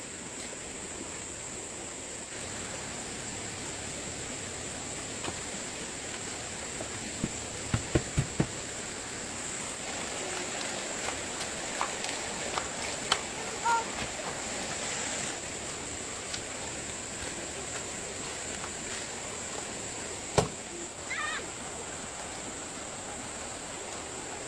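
Rural outdoor ambience carried by a steady, high-pitched insect drone, with a few dull knocks about a third of the way in and one sharp click near the end.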